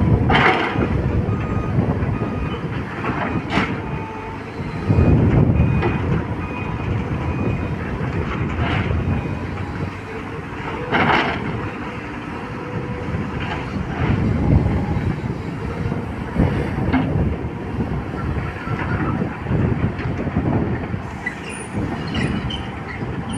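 Volvo excavator working iron ore: its diesel engine runs under load with surging rumble, and metal clanks and rattling of the bucket and tracks in the ore ring out a few times, loudest about half a second and eleven seconds in.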